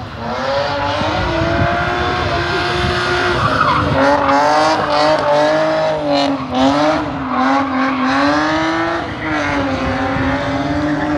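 Drift car's engine held at high revs, its pitch wavering up and down, over tyre screech as the car slides sideways through a corner.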